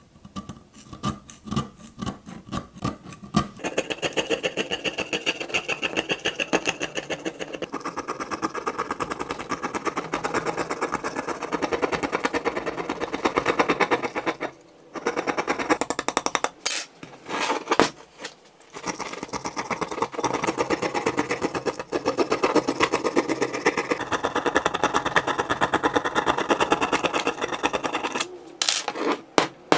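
A small steel scraper blade scraping rust off a rusty iron axe head in rapid, repeated strokes. It starts with a few separate strokes, then scrapes fast and almost without a break, pausing briefly a few times about halfway through.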